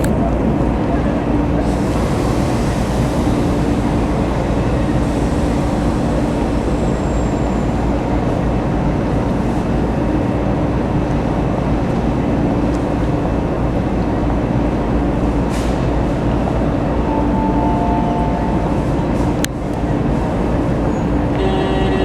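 Toyama city streetcars running through the station stop: a steady rumble of the trams and street with a low motor hum that comes and goes. A few short electronic tones sound near the end.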